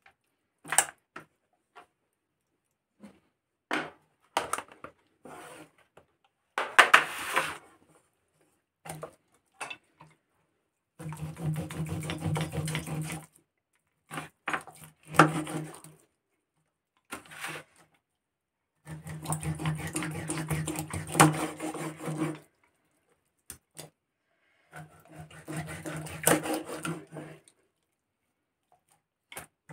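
Kitchen knife cutting a whole scaly fish into steaks on a wooden chopping block: scattered knocks and taps of the blade on the wood, then three longer stretches of sawing through scales and backbone, each lasting a few seconds.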